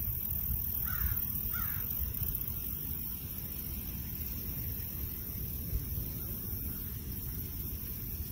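A bird gives two short calls in quick succession about a second in, over a steady low rumble.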